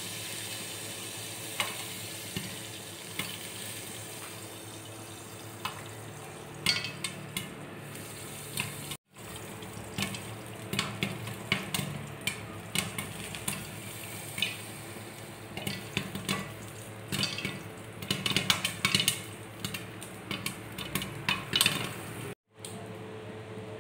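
Popcorn kernels popping in hot oil inside a lidded pot on the stove: sharp pops over a steady sizzle, a few scattered at first, then coming thick and fast from about halfway through.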